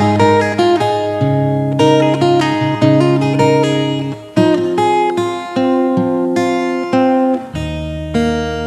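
Instrumental intro of a backing track: acoustic guitar picking chords with a steady rhythm, with deeper bass notes joining near the end.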